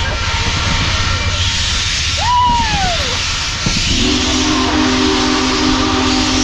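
Union Pacific Big Boy 4014 steam locomotive: a steady hiss of steam, then about four seconds in its multi-note steam whistle sounds suddenly and holds a steady chord.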